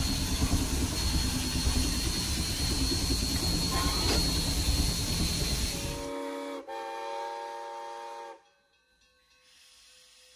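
Coal-fired K-36 steam locomotive No. 480 standing with steam hissing loudly. About six seconds in, a chime steam whistle sounds a chord of several notes, broken briefly after half a second and then held for nearly two seconds before cutting off.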